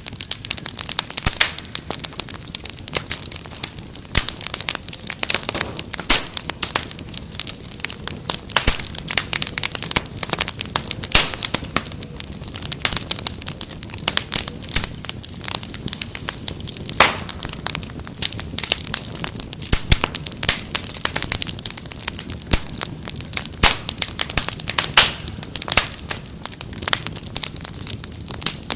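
Wood fire crackling in a fireplace: a steady stream of irregular sharp pops and snaps over a low hiss of flames.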